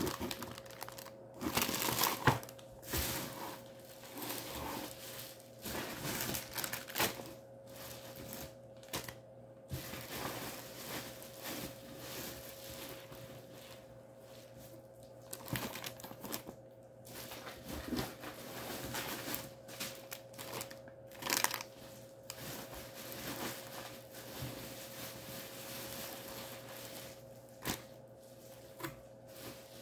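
Clear plastic produce bags crinkling and rustling in irregular bursts as they are handled and lifted out of a cardboard meal-kit box. A faint steady hum runs underneath.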